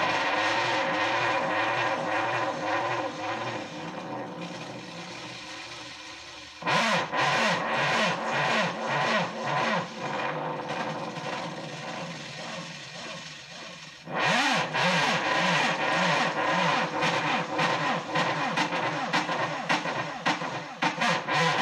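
Hand-built sound-art machine: a wooden pendulum arm on a small motor unit, pushed by hand and left to swing, gives a whirring, warbling sound whose pitch rises and falls with each swing and fades as the swing slows. It is pushed again twice, about seven and fourteen seconds in, and each push brings it back up loud.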